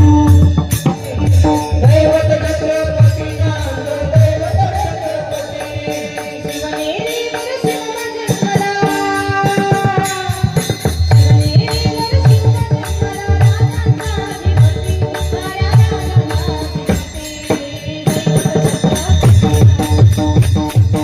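Marathi kirtan music: a pakhavaj drum beats a steady rhythm with jingling hand cymbals, under a held melody line.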